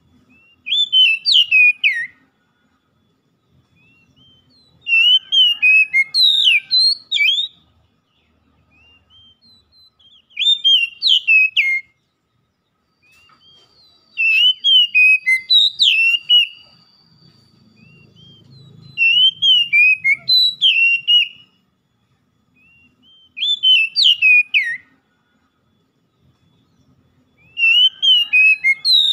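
Oriental magpie-robin (kacer) singing: about seven short phrases of loud, sliding whistled notes, each a second or two long, with brief pauses between them.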